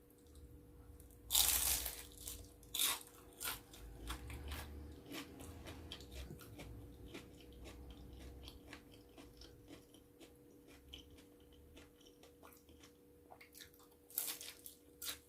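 Close-up biting and chewing of crunchy food: a loud crunch about a second and a half in, steady crackly chewing, then another loud crunch near the end, over a faint steady hum.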